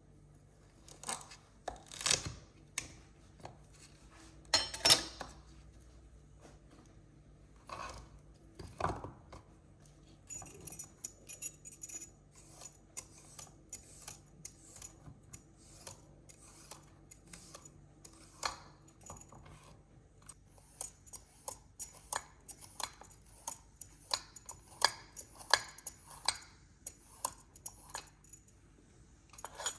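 Kitchen utensils clicking and tapping against dishes and bowls. There are a few louder knocks in the first ten seconds, then a long run of quicker, lighter taps.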